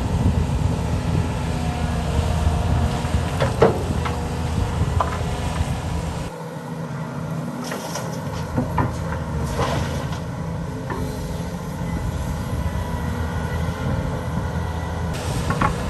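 Diesel engine of heavy construction machinery running steadily, with several sharp metallic clanks.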